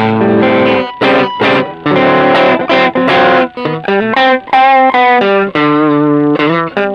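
Electric guitar played through a Caline Green Mamba overdrive pedal: a few short distorted chord stabs, then single held notes with a wavering pitch from about four seconds in. The tone setting sounds a little short on treble to the player.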